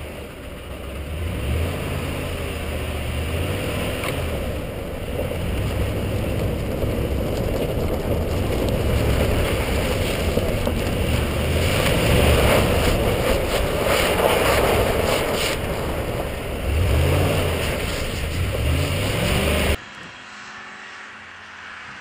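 A 2010 Ford F-150's V8 engine revving up and down again and again as the pickup drifts on snow-covered ice, heard from a camera on the truck's body over a loud rush of wind and tyre noise. About 20 s in the sound cuts abruptly to a much quieter, distant engine sound.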